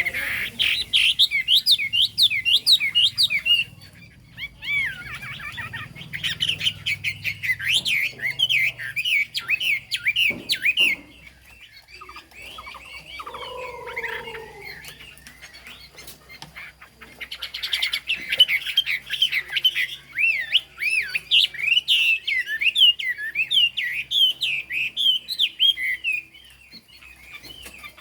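Chinese hwamei (họa mi) singing: three long runs of rapid, varied, warbling phrases, separated by pauses. A lower, brief call comes in the middle pause.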